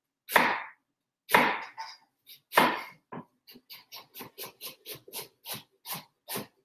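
Knife slicing red cabbage on a cutting board for julienne: a few heavier cuts, then from about halfway a quick, even run of slicing strokes, about four a second.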